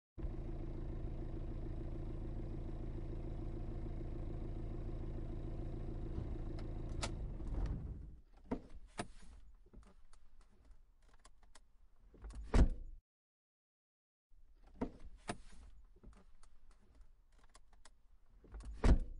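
Car engine running steadily, heard from inside the car, then shutting off about eight seconds in. Clicks and rattles follow with a car door shutting; after a short gap come more clicks and a second door shutting near the end.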